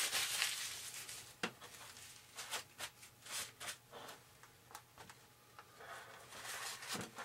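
Paper towel rustling and rubbing in short scattered strokes, with a few light ticks, as excess epoxy is wiped off a foam model-airplane wing.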